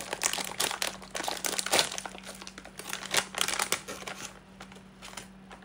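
A plastic packaging bag crinkling and rustling as hands pull it open and handle it. The crackling is dense at first and thins to a few scattered crinkles after about four seconds.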